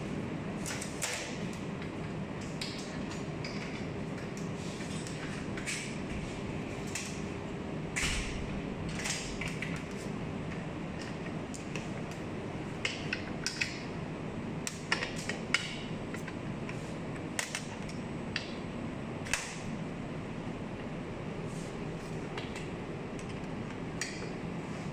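Scattered metal clicks and clinks of hex keys and small steel parts being handled and bolts tightened on a stainless steel machine table, over a steady hum in the room.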